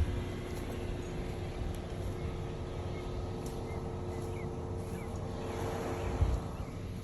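Steady hum of an engine or motor that fades out about six seconds in, over rumbling wind noise on the microphone, with a few faint bird chirps.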